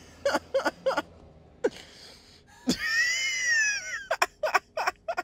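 A person's high-pitched wailing squeal, held for over a second in the middle and arching up and then down in pitch, with short vocal noises before and after it.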